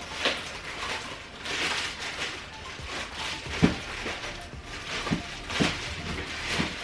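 Rustling and handling noise from the parts and packaging of an artificial Christmas tree being unpacked, with a few short sharp clicks and knocks.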